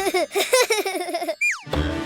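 A cartoon baby giggling in quick bursts for about a second and a half. Then a short falling whistle sound effect, and background music comes in.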